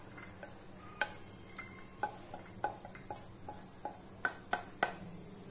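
Cookware clinks as ghee-fried cashews are scraped and tipped out of a non-stick kadai into a small glass bowl: a string of small sharp clinks, the loudest three close together near the end.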